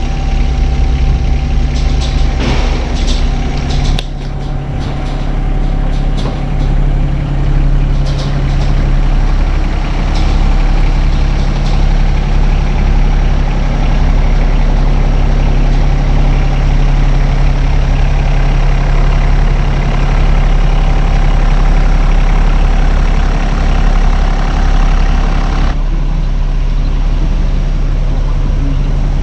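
A motor vehicle's engine running steadily, with a few light clanks and rattles in the first several seconds.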